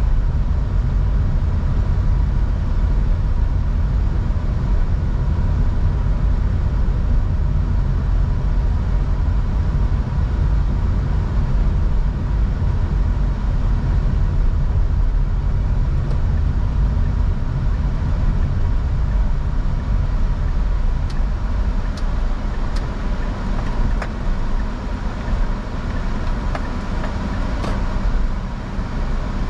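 A car driving, with a steady low road and engine rumble. A few sharp clicks come in the last several seconds.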